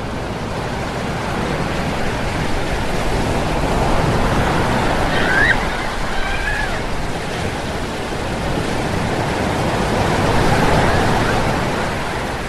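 Big ocean surf breaking and washing up a beach: a continuous rush that swells about four seconds in and again about ten seconds in. A brief faint call sounds about five seconds in.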